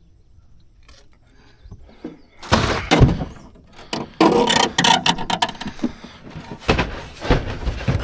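Irregular knocks and thuds on a small fishing boat with clattering in between, beginning about two and a half seconds in after a quiet start.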